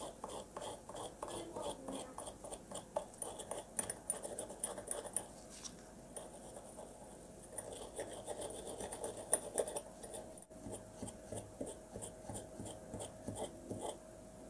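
Stiff brush scrubbing Rolex 3035 movement bridges under white benzene: a run of quick scratchy brush strokes, several a second.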